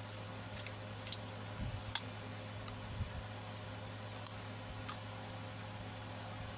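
Scattered light clicks and taps, about half a dozen, from handling the copper wire and blender armature during hand rewinding, over a steady low hum.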